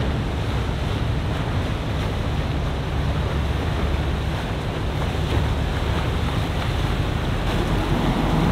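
Pardo 50 motor yacht passing at cruising speed: a steady low engine rumble under the rush of its wake, with wind buffeting the microphone.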